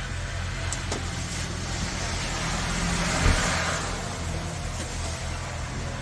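A motor vehicle's engine running steadily, with a swell of noise that builds and fades about three seconds in, marked by a short thump at its peak.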